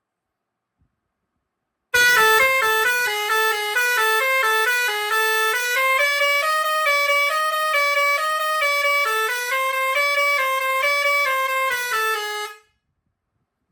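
Pioneairs 632S six-pipe steel-trumpet digital air horn playing a tune of quick stepped notes. It starts about two seconds in and stops abruptly near the end.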